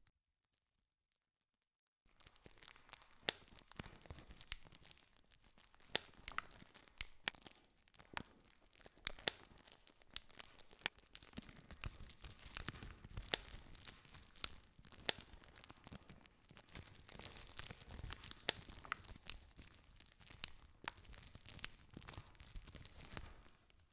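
Wood campfire crackling, with frequent sharp pops and snaps over a steady low hiss. It starts about two seconds in, after a moment of dead silence.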